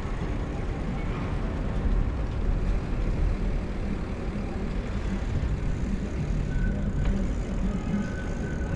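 Steady rumble of a bicycle ride: wind and road noise on a bike-carried camera's microphone, heaviest in the low end.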